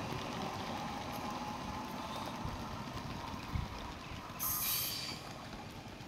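Train running on the rails with a steady low rumble. There is a single knock about three and a half seconds in, then a brief high-pitched burst of noise about a second later.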